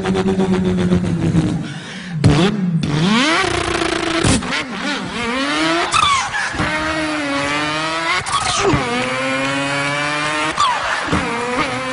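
A man imitating a racing car's engine with his voice: a rising revving whine that drops suddenly about five times, like a car accelerating up through its gears.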